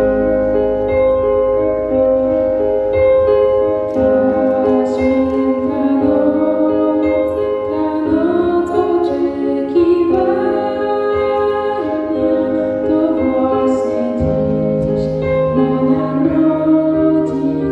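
A slow song: a woman singing over held keyboard chords, her voice coming in about four seconds in.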